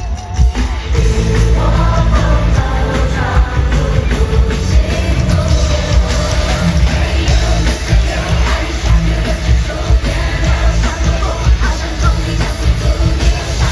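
Live pop concert recorded from the crowd: loud amplified band with heavy bass and drums, a woman singing over it.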